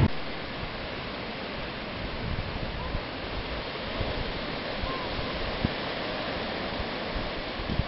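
Steady wash of ocean surf breaking on a sandy beach, with a few soft knocks.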